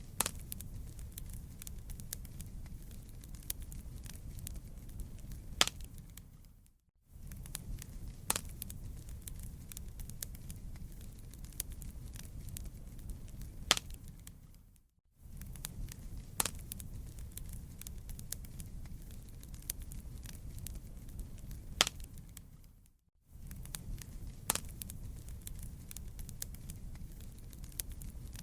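Wood fire crackling: a steady low rumble with scattered sharp pops and snaps, one pop in each stretch louder than the rest. The sound fades out briefly and comes back about every eight seconds.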